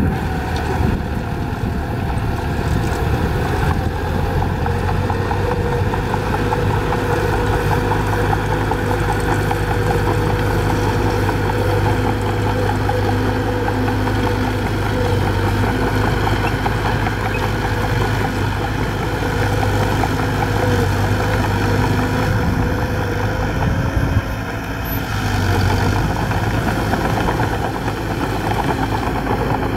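Diesel engine of a Mitsubishi BD2G small crawler bulldozer running steadily under load as it pushes dirt and rock with its blade. The level dips briefly about three quarters of the way through.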